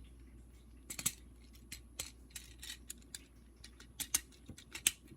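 Scattered sharp plastic clicks and taps, about ten, from a Transformers Cyberverse Ratchet action figure as its arms and parts are folded and snapped into place, over a faint steady hum.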